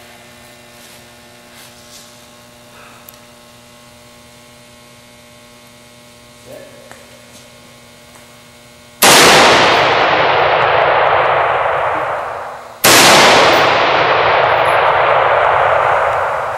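Two high-powered rifle shots about four seconds apart, each a sudden loud bang that fades away slowly over about three seconds.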